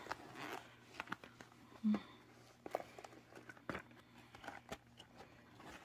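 Hands handling cosmetic products and packaging inside a small makeup bag: faint rustling with scattered light clicks and taps, about one a second. One short low hum about two seconds in.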